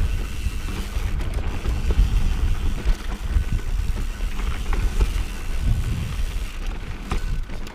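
Mountain bike riding over loose dirt and rock on singletrack: knobby tyres rolling and crunching, the bike rattling and clicking over bumps, with heavy wind rumble on the microphone.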